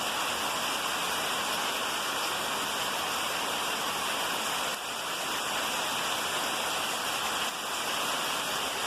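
Rain falling steadily: a dense, even hiss with no breaks.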